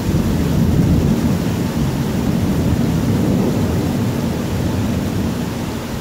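A long roll of thunder, a deep rumble that fades near the end, over the hiss of heavy rain.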